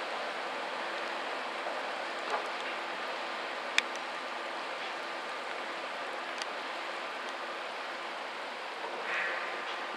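Steady hiss of heavy rain mixed with the churning propeller wash of a pusher tug, with a faint low hum underneath. A single sharp click about four seconds in.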